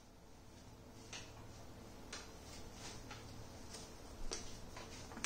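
Faint, irregular clicks, about eight of them a half-second to a second apart, over quiet room hiss and a steady low hum.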